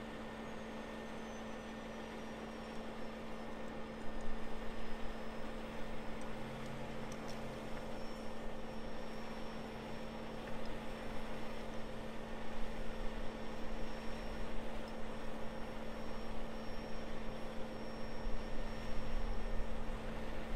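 Heavy crane truck's diesel engine idling steadily, a low hum with a faint high whine over it. The noise grows louder and more uneven from about four seconds in.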